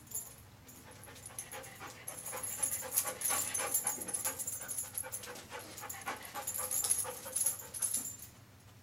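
A dog panting and sniffing in quick, rapid breaths while working a scent, starting about two seconds in and stopping shortly before the end.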